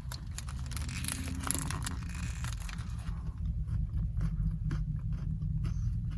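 Person biting into and chewing a double burger, with crinkly rustling of the wrapper paper for the first few seconds and scattered small clicks after, over a steady low hum.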